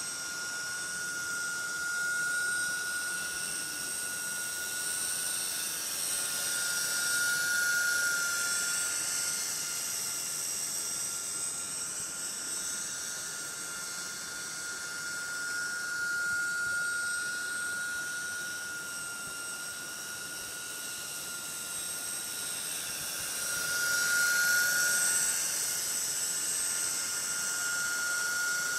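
Coaxial RC helicopter flying at slow head speed: a steady high whine with a hiss above it, swelling louder twice.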